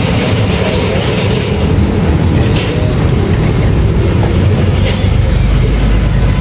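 Steady low rumble of motor vehicles, with a few short sharp clicks about two and a half and five seconds in.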